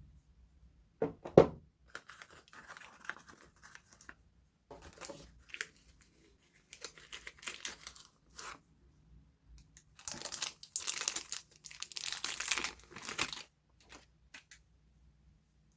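Soap packaging being torn open and crinkled by hand in several bouts, loudest from about ten to thirteen seconds in. A knock about a second in.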